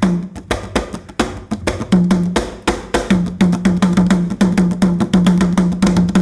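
Giriama drums played in a fast rhythm of sharp strokes, a mid-pitched drum tone under hard, clacking hits. For about the first two seconds the strokes are sparser and quieter, then the dense pattern comes back in full.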